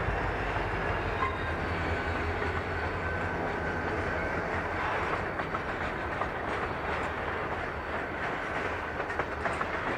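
Freight train cars rolling past: a steady rumble and rattle of steel wheels on the rails. Sharp clicks of wheels over rail joints become more frequent in the second half.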